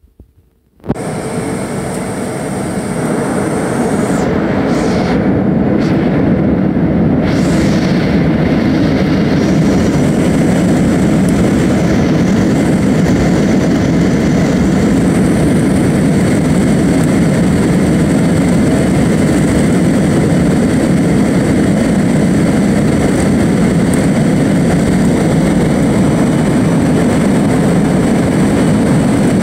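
Jet airliner engines at takeoff power, heard from inside the cabin over the wing during the takeoff roll: a loud, steady rush with a faint high whine. It starts abruptly about a second in and builds over the next few seconds before holding level.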